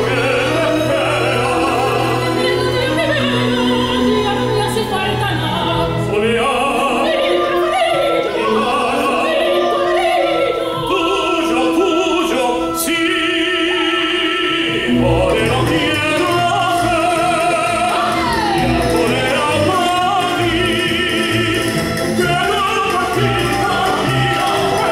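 Soprano and tenor singing a Spanish zarzuela duet in operatic style, accompanied by a full symphony orchestra, with long held notes sung with vibrato.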